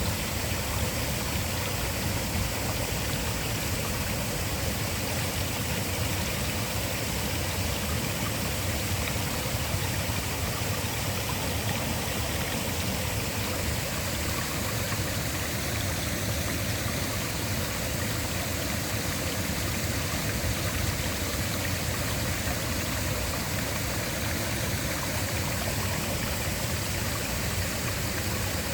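Waterfall: a steady, unbroken rush of falling water with a deep rumble beneath it.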